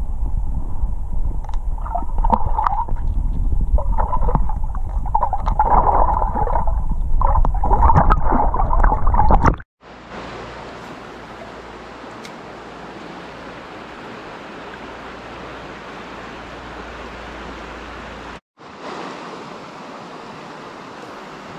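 Muffled underwater gurgling and low rumble of a mountain river, picked up by a submerged action camera. About ten seconds in it cuts to the much quieter steady rush of shallow water running over stones, broken once by a brief silent gap near the end.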